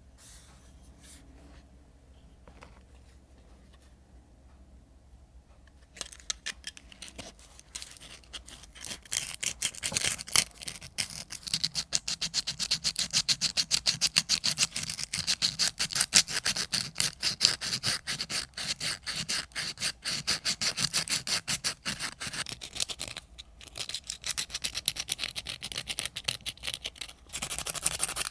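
Sandpaper rubbed by hand over the rusty steel blade of an old spoon knife, taking off rust: rapid back-and-forth scratching strokes that start about six seconds in after some faint handling, with a brief pause near the end.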